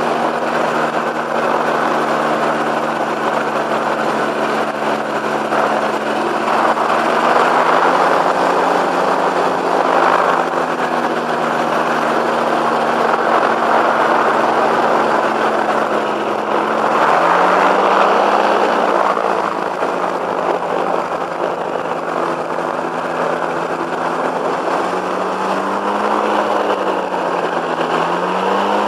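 A flex-wing microlight's two-stroke engine and propeller running steadily at low power while the trike taxis on grass. The engine note rises and falls briefly about two-thirds of the way in and again near the end as the throttle is worked.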